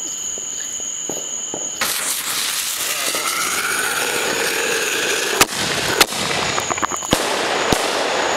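Aerial fireworks going off: about two seconds in, a loud hiss of sparks spraying from the tubes begins, with a faint rising whistle. This is followed by four sharp bangs as the shells burst overhead.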